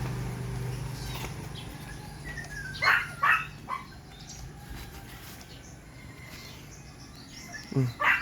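Three short, high animal cries in quick succession about three seconds in, over a low steady hum that fades after the first couple of seconds.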